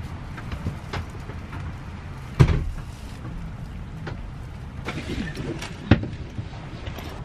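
Steady low rumble of a coach bus engine and traffic, with a loud thump about two and a half seconds in and a sharp knock near six seconds.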